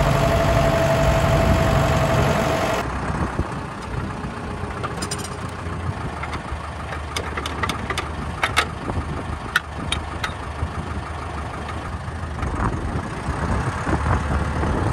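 Deutz-Allis tractor's diesel engine running while towing a hay wagon through snow. About three seconds in, the sound drops suddenly to a quieter, steady engine hum, with a scatter of sharp clicks and clanks in the middle.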